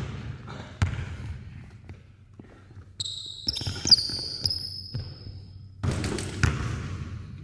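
A basketball bouncing on a hardwood gym floor in a few sharp thuds. Sneakers squeak sharply on the court about three to four seconds in during the one-on-one move. Near the end the ball drops through the hoop and bounces on the floor several times.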